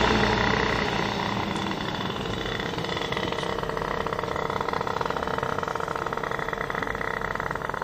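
Engine of a two-stroke Kawasaki Ninja motorcycle tuned up to 155cc, running. It falls away over the first two seconds after a louder pass, then runs on steadily with a fast, rattly exhaust note.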